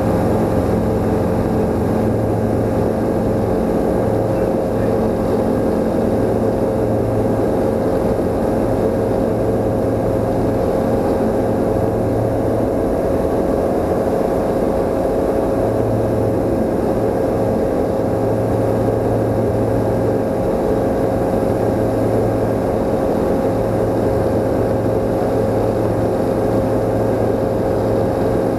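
Czech Sport Aircraft PS28 Cruiser's Rotax 912 engine and propeller running at takeoff power through the takeoff roll and climb-out. Heard from inside the cockpit as a loud, steady hum that holds one pitch.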